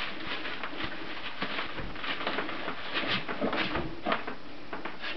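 Young Brittany puppies' paws and claws pattering on a vinyl floor: scattered light, irregular taps and clicks.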